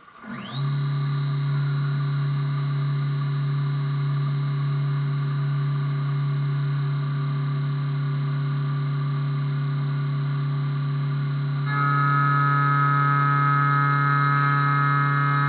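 CNC milling machine cutting an aluminum part: the spindle whine rises in pitch within the first half second, then holds a steady high whine over a low hum. About twelve seconds in, more tones join and it grows slightly louder.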